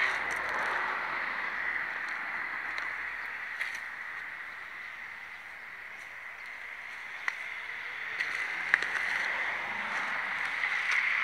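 Steady rushing background noise that swells and fades, loudest at the start and near the end, with a few light clicks scattered through it.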